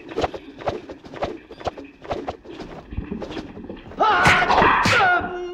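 A rapid, irregular string of nunchaku swishes as the weapon is whirled, about three or four a second. About four seconds in, several men shout loudly as they charge.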